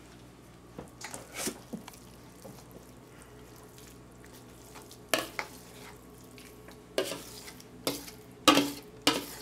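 Metal spoon scraping and clinking against a stainless steel mixing bowl and a foil pan as moist dressing is scooped out. A few soft scrapes at first, then sharper clinks and scrapes from about halfway, coming thicker near the end.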